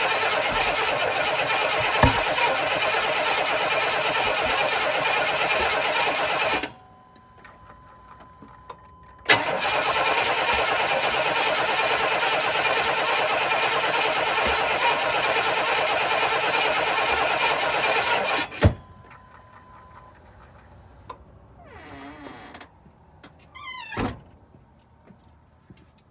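GM Vortec engine being cranked over by the starter in two long attempts, about six and nine seconds, without catching: a no-start after distributor work. A faint steady tone sounds in the pauses between attempts.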